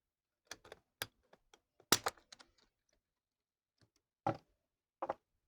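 Faint, scattered clicks and light knocks from hard objects being handled. The sharpest click comes a little under two seconds in, with a few softer knocks later.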